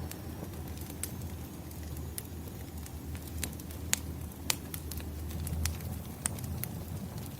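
Wood fire burning: a low steady rumble of flames with scattered sharp crackles and pops of the burning logs. The two loudest pops come about four and four and a half seconds in.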